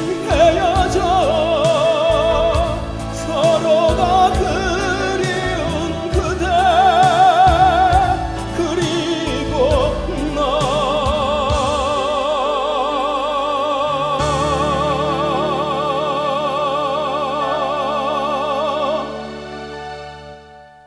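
An amateur tenor sings with wide vibrato over instrumental backing. About halfway through he settles on one long held final note. Near the end the voice and music fade out.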